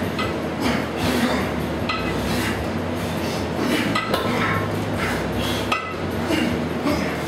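Kettlebells clinking and knocking as several people clean and press them in pairs: irregular metallic clinks, a few each second, over a steady low hum.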